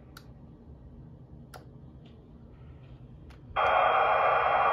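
A few faint clicks, then, a little over three and a half seconds in, a radio scanner's speaker suddenly comes on with loud, steady static.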